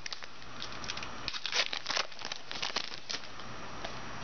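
A trading card pack wrapper being crinkled and torn open, in irregular crackling bursts that are busiest in the middle.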